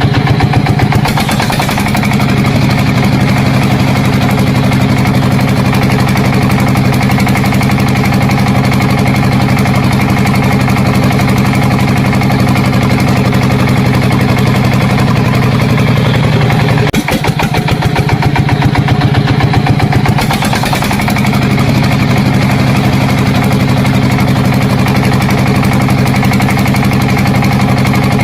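A motor running steadily with a low hum. About seventeen seconds in it changes to a fast, even chugging for a few seconds, then settles back to the steady hum.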